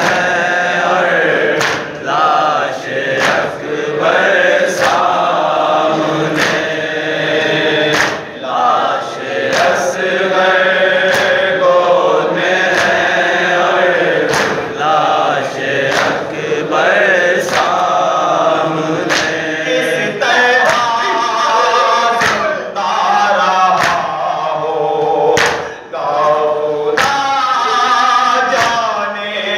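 Live noha (Shia lament): a male reciter chanting into a microphone with a group of men singing the refrain along with him. Sharp hand-on-chest slaps of matam keep a steady beat, a little more than one a second.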